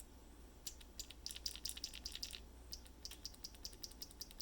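Prototype 3D-printed Void Switch key switch pressed over and over, a loose metal bit inside giving faint, sharp little clicks: a quick cluster, then a steady run of about four or five a second.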